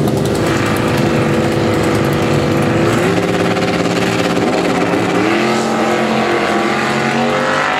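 Two drag-racing cars' engines running loudly at the starting line while staged, their pitch rising a few times as the drivers rev them, and climbing again near the end just before the launch.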